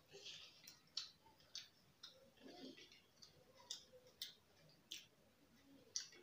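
Faint eating sounds: irregular soft clicks and light rustles as fingers pick crumbs of French fries and sandwich off paper plates and the food is chewed, about half a dozen clicks.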